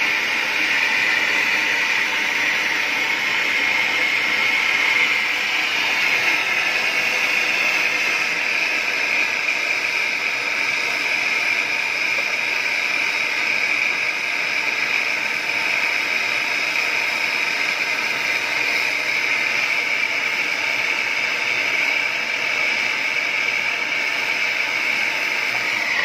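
MAPP gas brazing torch burning with a steady hiss, its flame heating a copper refrigerant pipe joint to red heat for brazing.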